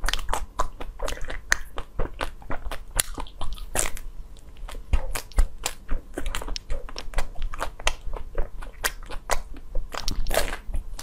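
Biting and chewing a frozen blue ice bar on a stick: loud, irregular crunches of the frozen bar breaking between the teeth, many in quick succession.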